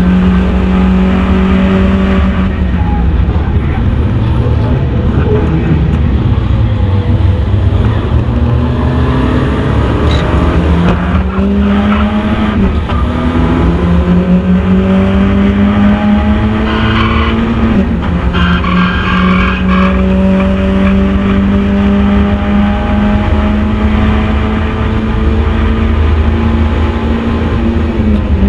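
Mazda MX-5 race car's four-cylinder engine under hard acceleration, its pitch climbing slowly and dropping sharply several times with gear changes and lifts for corners. Tyres squeal briefly about two-thirds of the way through.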